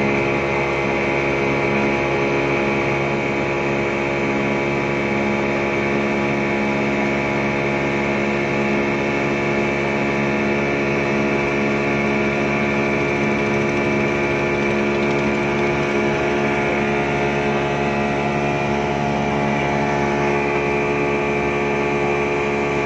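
Yamaha 200 hp outboard motor running at a steady high speed, driving a fully loaded passenger speedboat, with the rush of water and spray from the hull and wake. Its pitch holds level throughout, with no change in throttle.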